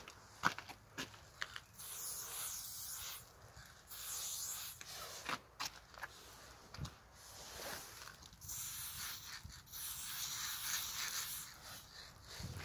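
Aerosol spray paint can hissing in several bursts of a second or two each, paint being sprayed onto a wall, with a few short clicks in the gaps.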